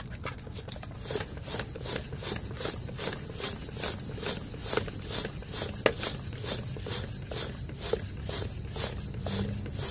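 Floor pump worked rapidly, an air hiss with each stroke at about three to four strokes a second, as it tries to inflate a tubeless 29x3.0 mountain bike tire; the bead is not seating.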